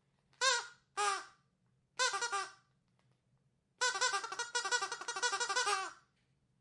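Rubber duck squeaky toy squeezed: three short squeaks about a second apart, then a quick run of rapid squeaks for about two seconds.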